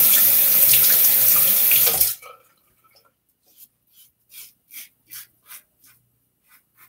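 Tap running into a bathroom sink, shut off abruptly about two seconds in. Then a Timeless Titanium .68 safety razor with a Gillette Nacet blade scrapes through lathered stubble in short, faint strokes, about two a second.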